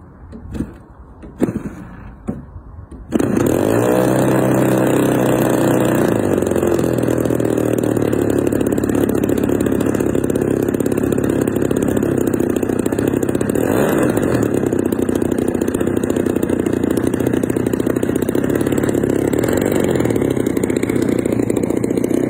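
Engine of a large RC aerobatic model plane: a few knocks as the propeller is flipped by hand, then about three seconds in the engine catches and runs steadily, its pitch settling over the first second or two.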